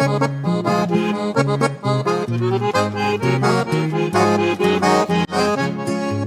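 Piano accordion playing a chamamé melody, accompanied by a classical guitar.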